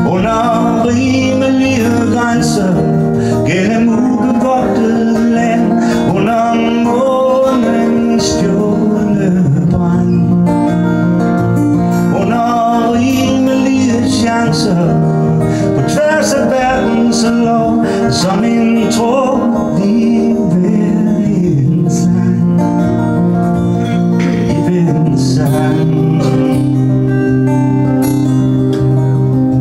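Acoustic guitar strummed steadily with a man singing over it: a live solo singer-songwriter performance.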